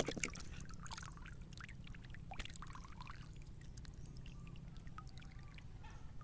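Faint water sloshing and trickling, with scattered small splashes and drips over a steady low hum.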